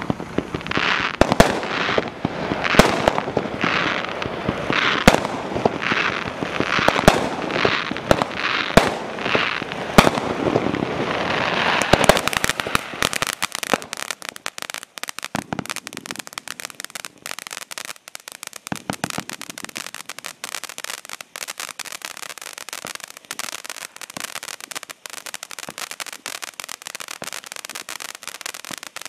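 Primed Pyrotechnics Krakatoa 500 g firework fountain burning. For about the first twelve seconds it rushes in surges roughly once a second, each opening with a sharp crack; then it turns to a dense, steady crackle, the fountain's crackling-star phase.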